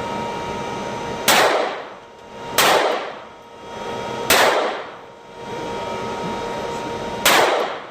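Four gunshots, unevenly spaced, each sharp report followed by a brief fading ring.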